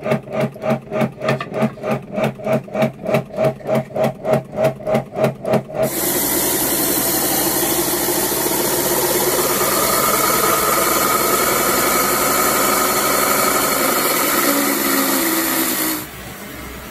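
Kärcher electric pressure washer running with a rhythmic pulsing hum, about four pulses a second, then for about ten seconds a steady loud hiss of the water jet blasting a terracotta pigeon nest bowl. Near the end it cuts off to a quieter steady background.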